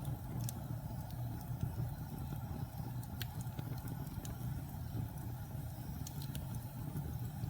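Logs burning in a fireplace: a steady low roar of the flames with scattered sharp crackles and pops, one about half a second in, one around three seconds, and two close together near six seconds.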